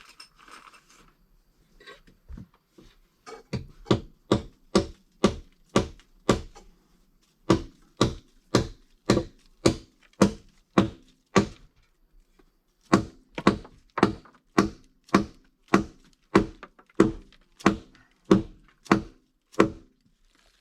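A tool striking wood over and over, about two blows a second, in three runs with short pauses between them.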